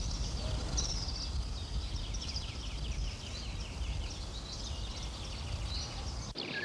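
Many small birds chirping: a dense run of short, quick, falling chirps, over a low rumble that cuts off suddenly near the end.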